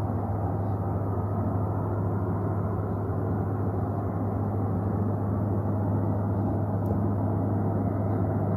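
A steady, unbroken low drone with a strong deep hum, the unexplained 'strange sound' heard with no wind blowing, of unknown source.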